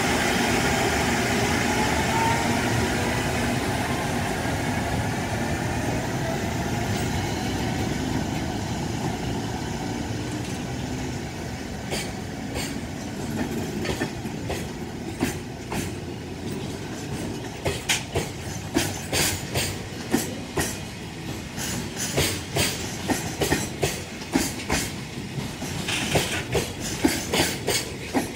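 Freight train passing: an EF510 electric locomotive goes by with a steady rumble and a gliding whine that fade over the first ten seconds or so, then a long train of container flatcars rolls past, its wheels clacking over rail joints in a growing series of sharp clicks, often in pairs.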